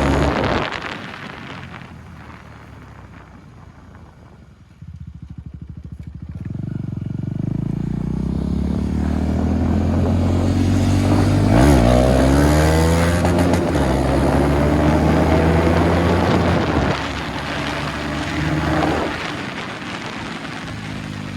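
KTM Duke 250's single-cylinder engine running with its exhaust removed. It falls to a low, quiet pulse, then about five seconds in comes back with a sharp, even pulsing. It then revs up loudly, its pitch climbing and dropping back several times before it eases off near the end.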